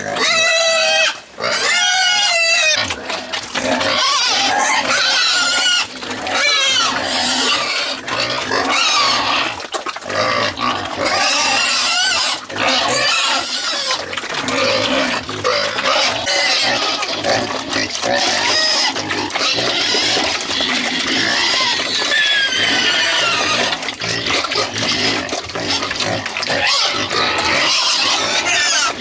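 A pen of pigs squealing loudly, many squeals overlapping with hardly a pause: hungry pigs clamouring at the trough at feeding time.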